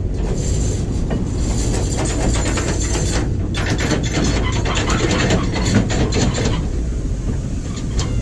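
Passenger train coaches rolling past at close range: a steady low rumble of wheels on rail with a dense run of clicking and rattling, which thins out about six and a half seconds in.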